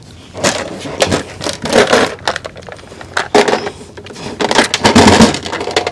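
Irregular clicking and rattling of loose metal screws handled in a small plastic case, with knocks and scrapes of handling, busiest about five seconds in.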